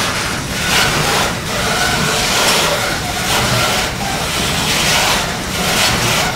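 Freight train of covered goods wagons rolling past close by: a steady rumble and rattle of wheels and wagon bodies that swells and dips as each wagon goes by.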